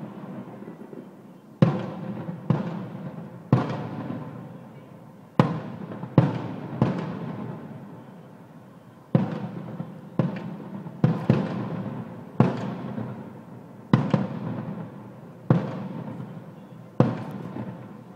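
Aerial firework shells bursting in the finale of a display: about fourteen loud bangs at irregular intervals of around a second, some close together in pairs, each followed by a rolling echo that dies away.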